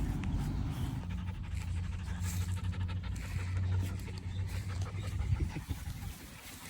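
Dog panting, winded from running after the frisbee, over a steady low rumble.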